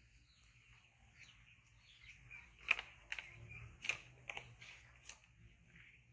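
Sharp clicks of a nail clipper snipping a pet macaque's fingernails, about five snips in a couple of seconds, the first the loudest. Faint high chirps go on underneath.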